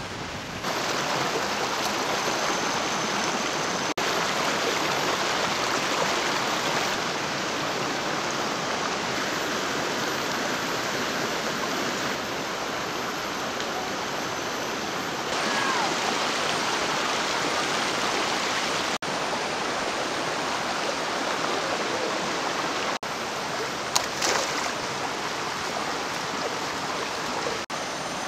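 Steady rushing of water, a dense even hiss with small jumps in level every few seconds, and one brief sharp knock about 24 seconds in.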